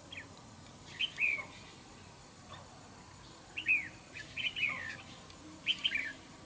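Red-whiskered bulbul singing: four short bursts of quick, whistled notes that sweep up and down, spaced a second or two apart.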